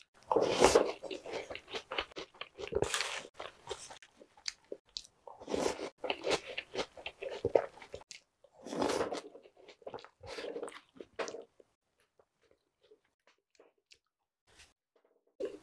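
Close-up crunching and chewing of a mouthful of Jolly Pong, a sweet puffed wheat cereal, soaked in milk, in repeated bursts. It goes nearly quiet after about eleven seconds, and a short bite comes at the very end.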